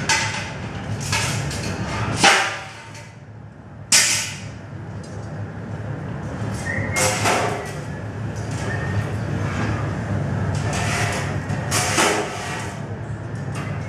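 Steady low roar of glassworking burners and furnace, with sharp clinks and knocks of metal tools and the iron pipe, several times. The roar drops away briefly a little after two seconds.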